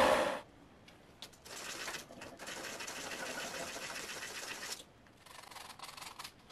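Wood lathe spinning a small workpiece while a skew chisel cuts it, stopping abruptly about half a second in. A quieter, fast rasping scrape of hand work on the wood follows for about three seconds, then a fainter stretch of the same.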